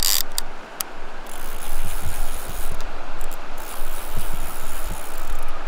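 Wind rushing over the microphone mixed with the wash of surf, a steady loud hiss with a few soft low thumps.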